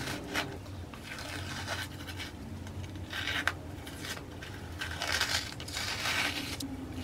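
Masking tape being peeled off a painted canvas: several rasping pulls as the tape comes away from the surface, with a few small clicks between them.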